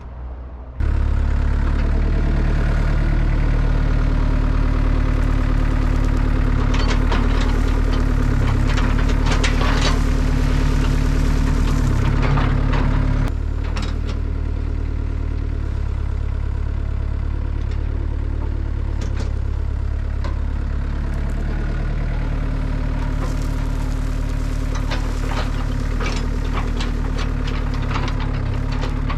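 A diesel engine on heavy machinery running steadily, with scattered metallic clanks and rattles. It starts abruptly just under a second in, and the engine drops to a lower, quieter note at about 13 seconds.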